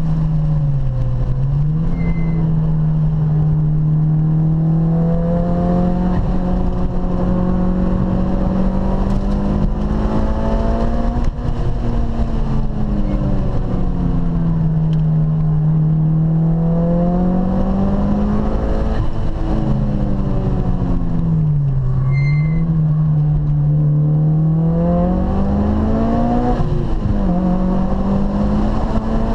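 Car engine heard from inside the cabin while lapping a track. Its pitch climbs under acceleration and falls away several times, with sudden drops at gear changes.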